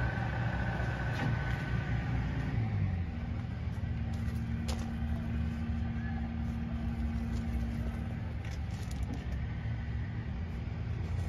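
Steady low rumble of a running engine, with a steady hum that comes in about three seconds in and fades near the end.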